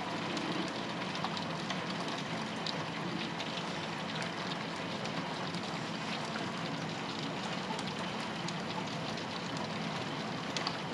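Heavy rain falling on a paved patio, heard through a closed glass door: a steady hiss with scattered ticks of drops.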